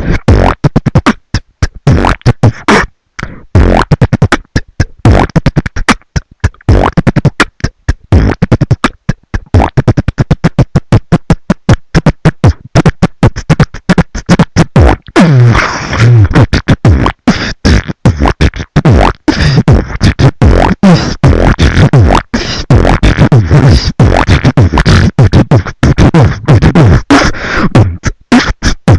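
Human beatboxing into a close microphone: rapid mouth-made kick, snare and hi-hat sounds in a fast rhythm, with short stretches of hummed, pitched bass.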